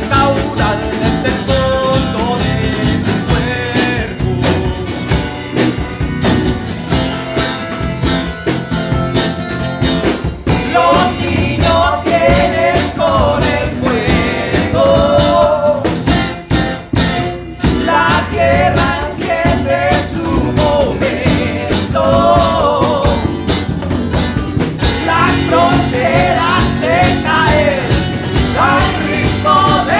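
Live folk-rock band playing: acoustic guitar and tiple strumming over drums and bass, with singing over the band at times.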